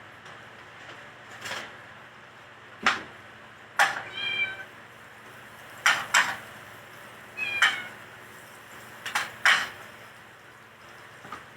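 A cat meowing twice with short, high calls, the second falling a little, among a series of sharp kitchen knocks and clatters that are the loudest sounds.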